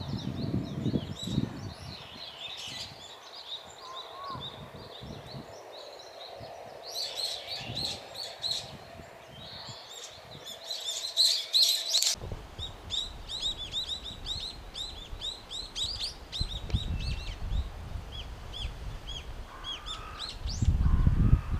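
Brown-eared bulbuls calling loudly with shrill, squeaky calls in rapid bursts, some calls overlapping. A low rumble comes and goes near the start and again near the end.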